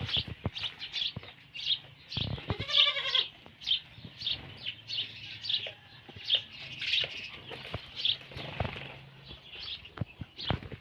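Small birds chirping over and over, a goat giving one short wavering bleat about three seconds in, and scattered light knocks.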